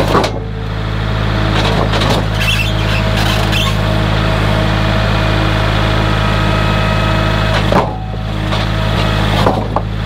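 Kubota tractor's diesel engine running steadily as its front-loader grapple lifts a stack of freshly sawn pine boards off the sawmill bed, with a few knocks from the boards shifting, about two seconds in and again near eight seconds.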